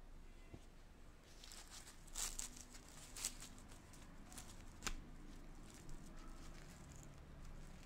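Flaky msemen (Moroccan laminated flatbread) being torn and pulled apart by hand, its crisp layers crackling and rustling faintly, with a few sharper crackles about two, three and five seconds in.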